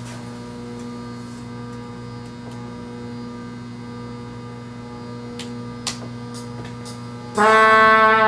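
Steady electrical mains hum from the sound system, with a few faint clicks. About seven seconds in, a karaoke backing track starts with sustained notes and is much louder.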